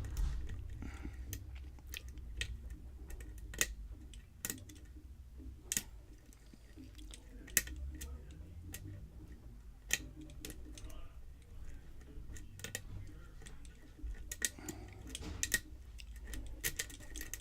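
Lock pick working the pins of a Schlage pin-tumbler lock under tension: small, irregular metallic clicks spread through, coming thicker near the end, over a low rumble of handling.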